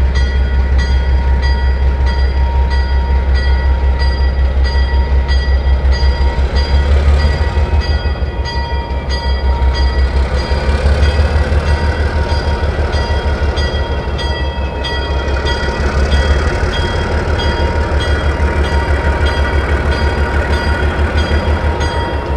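ALCO S6 switcher's 900-horsepower turbocharged six-cylinder diesel working hard under heavy load, chugging steadily as it lugs a roughly 1,400-ton freight train up a grade at walking speed.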